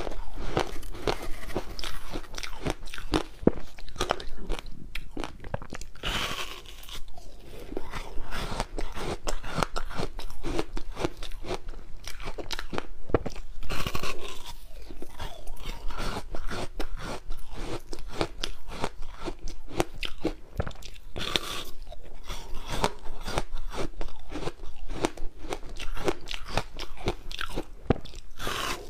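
Close-miked biting and chewing of hard ice frozen with passion fruit: a dense run of sharp crunches and crackles, with a few louder bites among them.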